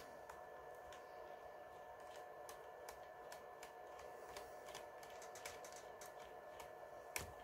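Faint scattered clicks and ticks of a small screwdriver turning a screw out of a laptop's screen hinge, with a sharper click at the start and another near the end.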